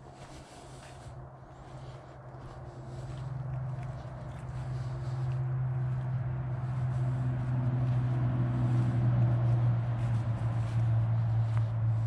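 Footsteps rustling through dry fallen leaves on a woodland path, with a low steady hum that grows louder from a few seconds in and becomes the loudest sound.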